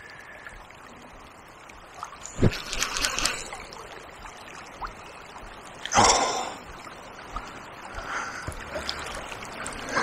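Fast river water running steadily, with two short louder surges of water noise about two and a half and six seconds in.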